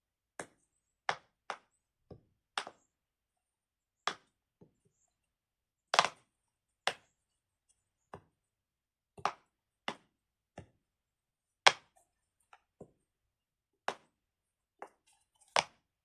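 Pops of a silicone pop-it fidget ball being pushed in one at a time: about twenty short, sharp pops at an irregular pace, roughly one a second. The pops are stiff to push in and tend to spring back out.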